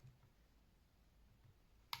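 Near silence: faint room tone, with one sharp click near the end.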